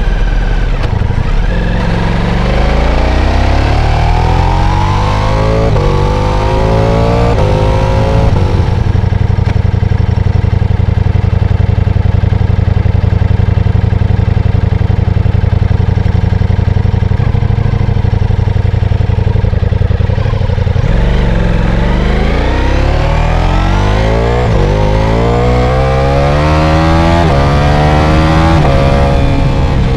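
Ducati Diavel V4's V4 engine accelerating hard, its pitch climbing through several quick upshifts, then holding a steady cruise for about twelve seconds before pulling up through the gears again near the end.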